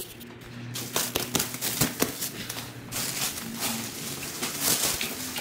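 Clear plastic stretch wrap being pulled off a machine and bunched up, crinkling and crackling in quick irregular rustles that grow busier and louder in the second half.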